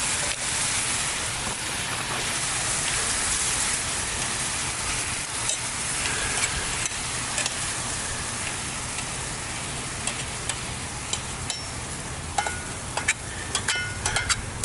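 Hash browns and freshly added water sizzling in a pan over a campfire: a steady hiss, loudest in the first few seconds. In the last few seconds a metal utensil clinks and scrapes against the pan.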